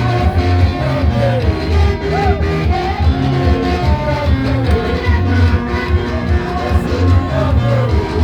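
Upbeat praise music with a steady beat, strong bass, guitar and singing.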